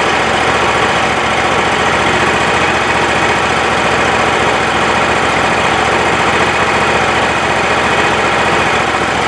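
Kohler Command Pro 25 hp V-twin engine on a Wood-Mizer LT35 sawmill running steadily, warming up.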